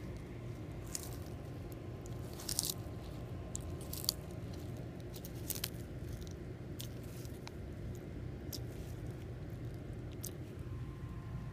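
Red-footed tortoise biting and tearing off kale leaves: irregular crisp crunches and leafy snaps, with a few louder bites in the first half.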